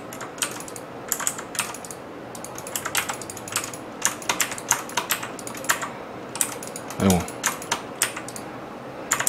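Computer keyboard typing in short irregular runs of clicks, mixed with mouse clicks. A brief wordless vocal sound comes about seven seconds in.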